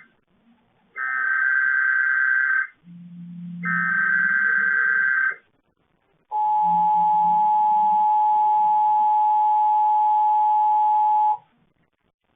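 Emergency Alert System weekly test: two more bursts of the SAME header's warbling digital data tone, each about a second and a half long. Then the two-tone EAS attention signal holds steady for about five seconds and cuts off suddenly.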